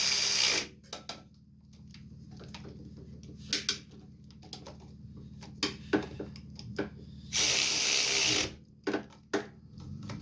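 Ratchet wrench tightening the carburetor mounting nuts: two runs of rapid ratchet clicking about a second each, at the start and near the end, with scattered clicks and taps of metal between.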